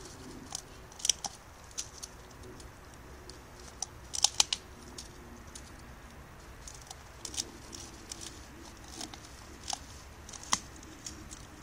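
A pit bull gnawing and tugging at a thin birch stem: irregular sharp cracks and snaps of wood and bark in its teeth, with a cluster of louder snaps about four seconds in.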